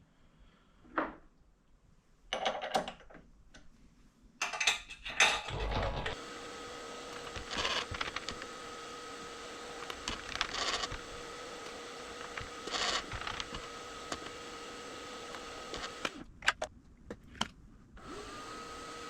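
Precision Matthews PM-25MV benchtop milling machine's motor starting and running with a steady hum, with a few louder swells while it runs. It stops suddenly, then starts again near the end. Some clicks and knocks of handling come before it starts.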